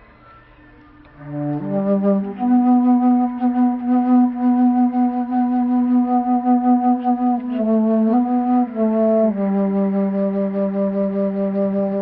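Flute choir, low flutes among them, playing slow, sustained chords. It comes in about a second in, with the chord shifting a couple of times near the middle.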